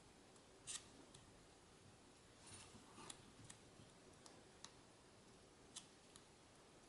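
Faint, scattered light clicks and scrapes of a plastic card spreading thermal compound over a CPU heatsink, against near silence.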